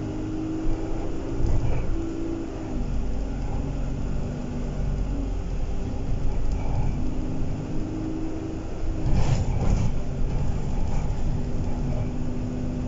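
Alexander Dennis Enviro 200 single-deck bus heard from inside the passenger cabin while under way: a continuous low engine and drivetrain rumble with a whine that climbs in pitch and then drops, twice. A few rattles come about nine seconds in.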